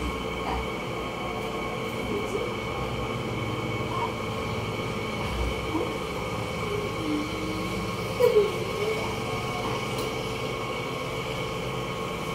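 Cordless electric hair clipper running with a steady buzz as it cuts a short army cut. A brief louder sound comes about two-thirds of the way in.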